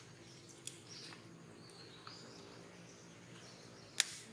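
Quiet outdoor ambience with a steady low background hum and a few faint high chirps, broken by a single sharp click near the end.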